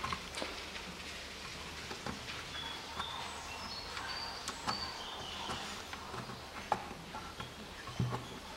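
Scattered small clicks and taps from a hand screwdriver driving self-tapping screws into the plastic cover of a Range Rover Evoque front door lock, with short bird chirps behind.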